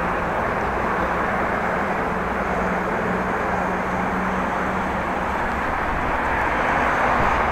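Steady noise of a bicycle being ridden, with tyres rolling on the path and wind rushing over the microphone, and a faint steady hum underneath.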